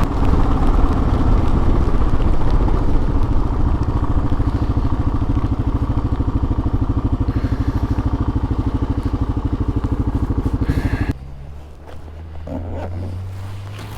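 Motorcycle engine running under way with wind noise, its firing rhythm slowing as the bike eases off. About eleven seconds in it cuts off suddenly, leaving a quieter low steady hum.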